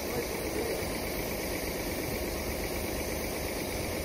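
An engine idling steadily, a constant low rumble.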